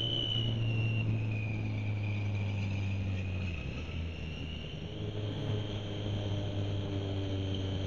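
Motorcycle engine running at road speed, heard with wind noise from a helmet camera, the engine note easing off about halfway through and picking up again. Over it sits a steady high whistle that drifts a little in pitch, which the riders put down to the Triumph.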